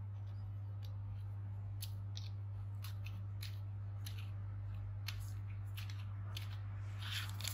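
Faint scattered clicks and taps as the aluminium microneedling pen and its screw-on battery are handled, over a steady low hum.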